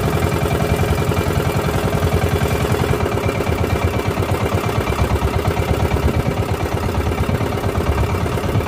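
Engine of a motorized outrigger fishing boat running steadily under way, a fast, even pulsing hum.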